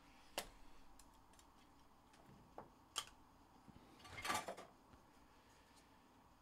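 Trading cards in clear plastic sleeves and top loaders being handled: two sharp light clicks about two and a half seconds apart, then a short plastic rustle about four seconds in as a card is set on the stack.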